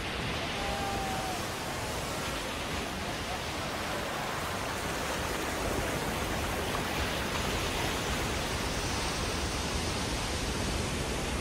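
Heavy surf breaking and churning over rocks: a steady, unbroken rush of white water.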